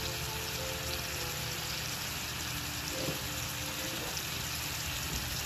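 Goya champuru of bitter melon, pork, tofu and egg sizzling steadily in a frying pan.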